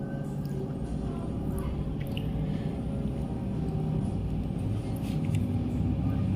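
Low rumble of a road vehicle, growing steadily louder, with a few faint clicks and taps over it.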